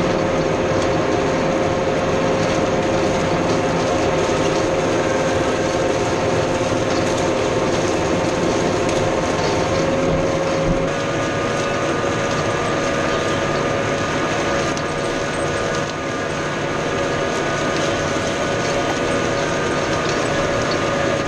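New Holland T4.100 tractor's diesel engine running steadily under heavy load while pulling a five-shank chisel plow through the ground, with a continuous rattling clatter from the machinery. The engine note shifts slightly about halfway through.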